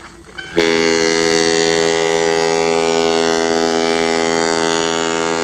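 Ship's horn sounding one long, steady blast that starts abruptly about half a second in.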